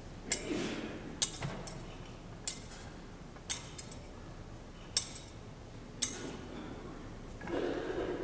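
Brass thurible (censer) swung to incense the Gospel book, its chains and lid clinking in sharp metallic chinks roughly once a second, about six to eight times. A softer, duller noise rises near the end.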